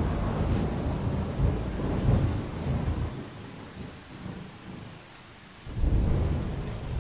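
Thunderstorm sound effect: a low rolling thunder rumble fades away over about three seconds with rain beneath it, then a second thunder roll breaks in suddenly near the end.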